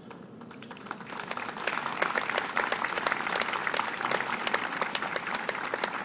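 Audience applauding, a dense patter of many hands clapping that builds up over the first two seconds and begins to fade near the end.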